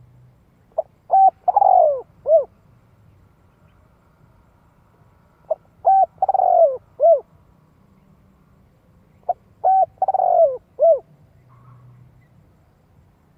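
Spotted dove cooing in three phrases, about four seconds apart. Each phrase has two or three short coos, one longer coo that falls in pitch, and a short coo to close.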